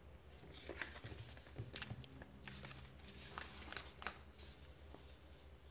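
Faint rustling with a scattered run of sharp clicks: handling noise as the camera and paper sheet are moved.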